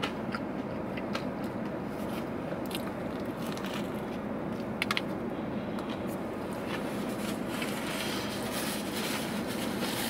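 A person chewing a mouthful of a chicken tender hot dog with slaw, with soft wet clicks and a brief louder crunch about five seconds in, over a steady hum in a car cabin.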